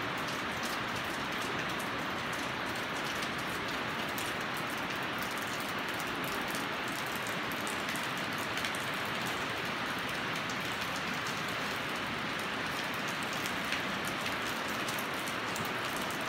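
Steady rain on the arched metal roof: an even hiss with a fine patter.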